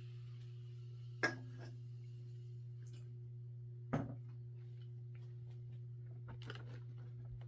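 Light handling sounds over a steady low hum: a sharp knock about a second in, a second knock around four seconds in, and a few faint ticks and rustles near the end.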